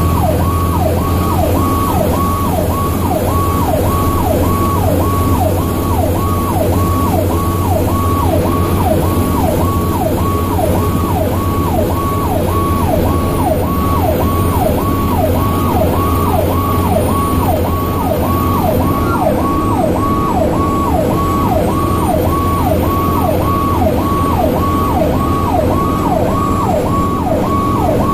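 Fire rescue truck's electronic siren in yelp mode, heard from inside the cab: a fast falling-and-rising wail repeating about twice a second without a break. Underneath runs the steady drone of the truck's engine and tyres on the road.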